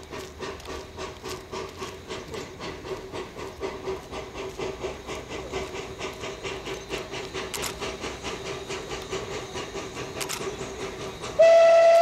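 Narrow-gauge steam locomotive working toward the listener, its exhaust beating in a steady rhythm. About eleven seconds in, its steam whistle sounds: a loud, steady single note that starts abruptly near the end.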